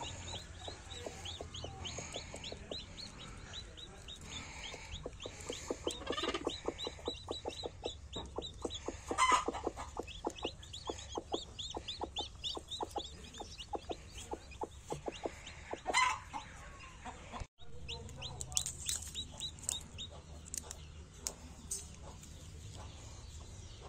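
Chicks peeping in quick, high, falling notes over a broody hen's fast, low clucking, which is strongest in the middle. A few louder calls stand out, about six, nine and sixteen seconds in.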